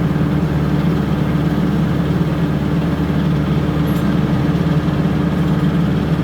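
Rice milling machine running steadily with a loud, even mechanical drone, freshly repaired after a punctured screen.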